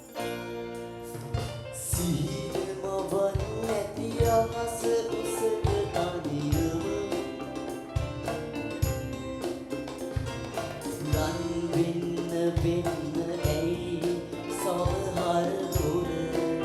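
Song intro: music with a regular drum beat under a held, gliding melody line.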